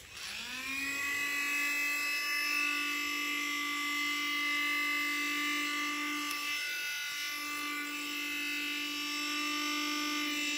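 Homemade mini drill's small DC motor, with a brass chuck and bit, switched on with a click and spinning up within about a second to a steady high whine. It runs free at speed, wavering briefly about two-thirds of the way through.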